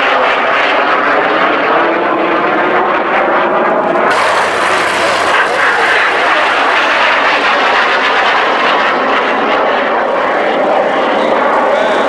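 BAC Jet Provost's Viper turbojet engine manoeuvring overhead: a loud, steady jet noise whose tone sweeps up and down as the aircraft moves. About four seconds in it suddenly turns brighter and hissier.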